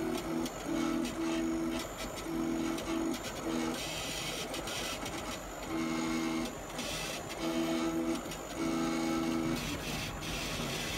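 Stepper motors of a 40 W CO2 laser cutter whining in short stop-start stretches as the gantry moves the laser head around a vector outline, over a steady low hum from the machine, with a few bursts of hiss.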